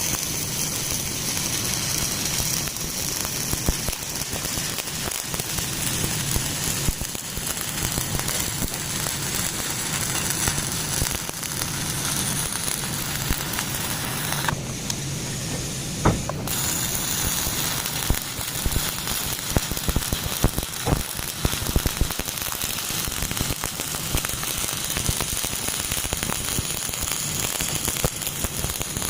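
Electric arc welding: a steady crackling sizzle from the welding arc, full of small sharp pops, over a low hum. The crackle dips out for about two seconds midway and then picks up again.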